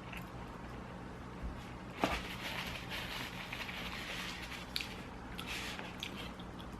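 Close-miked eating sounds: wet chewing and mouth noises, with one sharp click about two seconds in, followed by soft squishy rustling and small clicks.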